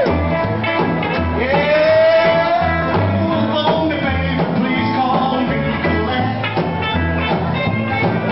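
Live rockabilly band playing: a man sings into the microphone over a strummed acoustic guitar, electric guitar, a bass line and drums, holding a long sung note about a second in.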